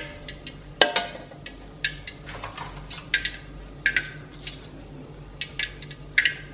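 Stainless kitchen utensils clinking: metal tongs and a slotted spatula tapping against a wire frying strainer and a wok as fried pieces are lifted out. The clinks are short and irregular, about one every half second to a second, with a sharper one about a second in.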